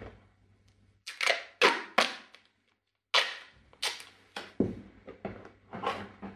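Gaff tape being pulled off the roll and torn in a quick series of short, sharp rips.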